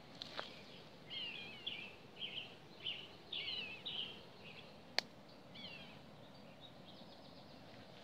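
A small songbird twittering faintly: a string of short, quick chirping notes over about five seconds, with a single sharp click about five seconds in.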